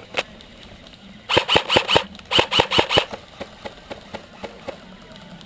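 Airsoft rifle firing two quick strings of about six shots each, every shot a sharp crack with a ringing note. Fainter, sparser shots or ticks follow for a couple of seconds.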